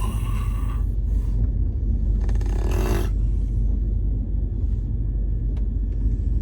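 Steady low rumble of a moving passenger train carriage, with two short hissing bursts, one at the start and one about two seconds in.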